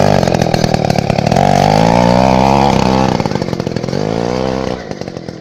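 Druzhba chainsaw's two-stroke single-cylinder engine driving a homemade snowmobile, running and revving, its pitch rising and falling twice. It drops back and gets quieter near the end.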